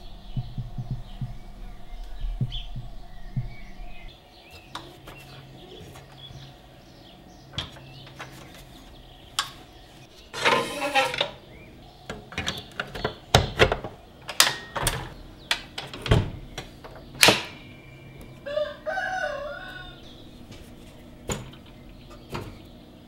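Sharp clicks and knocks of the plastic and metal parts of a Bosch GTM 12 JL combination saw as they are handled and moved. The clicks come in clusters, with a few louder knocks in the middle of the stretch.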